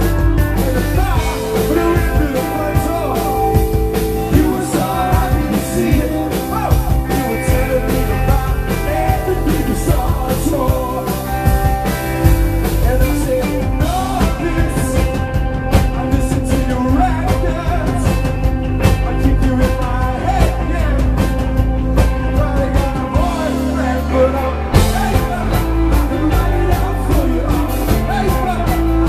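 Rock band playing live, with lead and backing vocals over electric guitars, drums and keyboard. Near the end the bass and drums drop out for about a second, then come back in.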